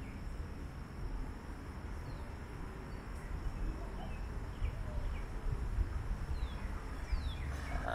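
Outdoor ambience: a steady low rumble, a faint continuous high insect hum, and scattered short bird chirps. Right at the end a burp begins.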